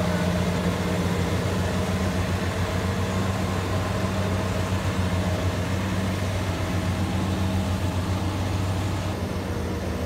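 Rice combine harvester's engine and machinery running steadily with a constant low hum, a little quieter about nine seconds in.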